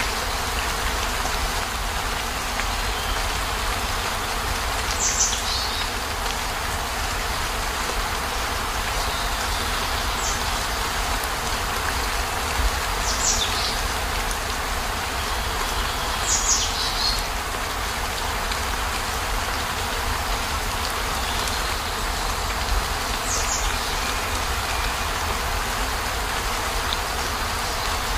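Steady rain falling on a campervan's roof and windows, heard from inside, with a deep even rumble under the patter. A short, higher splash or drip stands out every few seconds.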